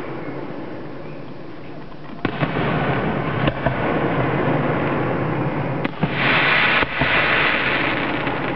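Fireworks display: several sharp reports from bursting shells over a steady low rumble, then a loud hissing burst about six seconds in that lasts about a second.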